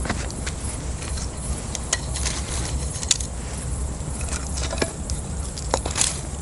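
Campfire crackling: irregular sharp snaps and pops, the loudest about three seconds in and near the end, over a steady low rumble.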